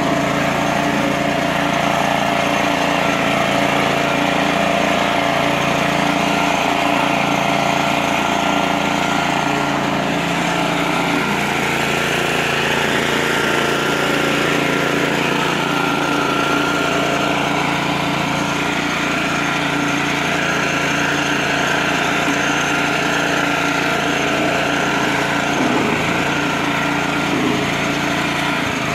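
Self-propelled lawn mower's small engine running steadily, its note shifting slightly about eleven seconds in and again near the end.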